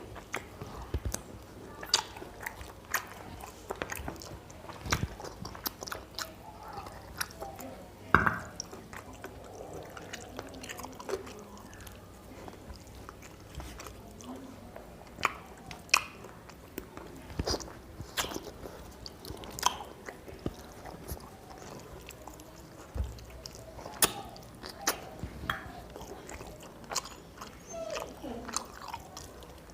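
A man chewing and eating chicken curry with rice, with irregular wet mouth clicks and smacks about every second or two.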